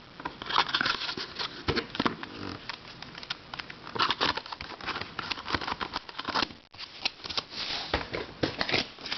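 Boxed twisty puzzles being handled: irregular clicks, taps and crinkling of cardboard and plastic packaging.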